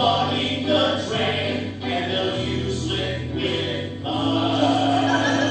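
Stage musical number: several voices singing together in harmony, ending on a long held chord about four seconds in.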